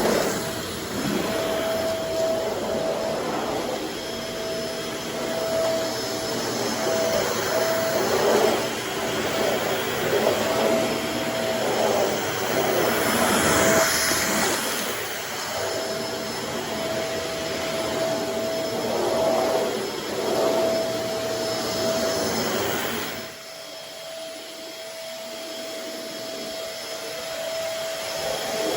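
Shark Navigator Swivel bagless upright vacuum cleaner running as it is pushed over the floor: a steady motor and suction noise with a whine that cuts in and out. The sound drops noticeably about 23 seconds in and stays quieter.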